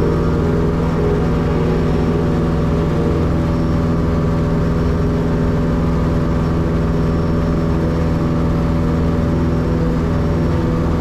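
Cessna 162 Skycatcher's Continental O-200 four-cylinder engine and propeller running steadily in flight, one constant even drone.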